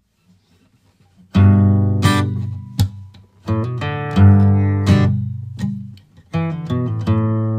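Background music: acoustic guitar chords strummed in a series of sharp, ringing strokes, starting about a second in.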